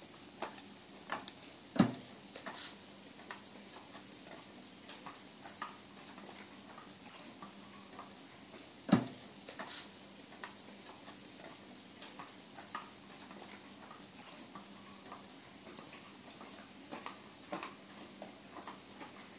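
Wooden geta sandals clacking on paving as people walk: an irregular clip-clop of clicks, with two louder knocks about two seconds and nine seconds in. A faint steady hum underneath.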